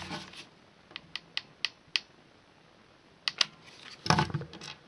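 Light clicks and taps of small plastic and metal parts being handled while metal washers are glued onto a PC fan's blades: a run of about five quick clicks, two more a little later, then a short cluster of knocks near the end.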